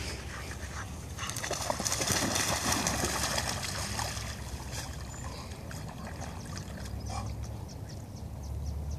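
Two dogs splashing as they run and wade into shallow river water, busiest and loudest in the first few seconds, then quieter.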